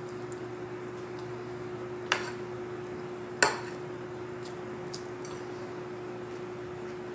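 Metal spoon and fork clinking against a plate twice, about a second apart, the second clink louder, with a few fainter taps and small eating sounds between. A steady low hum runs underneath.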